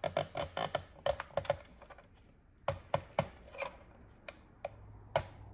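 Quick small plastic clicks and taps as wiring and a connector are pressed into the clips of a fuel pump module, a dense run of clicks over the first second and a half, another cluster around three seconds in, then a few single clicks.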